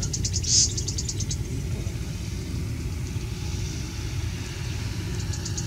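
Steady low rumble of wind buffeting the microphone. Two runs of rapid high ticking, about ten ticks a second, come near the start and again near the end, and a short sharp burst comes about half a second in.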